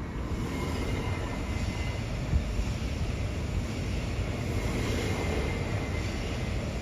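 SOB Traverso electric multiple unit running through the station, a steady rumble with a faint high whine. There is one brief knock about two and a half seconds in.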